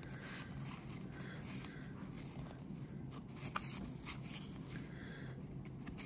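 1991 Donruss baseball cards handled and flipped through by hand: soft sliding and rubbing of card stock, with one small tick about three and a half seconds in, over a faint steady low hum.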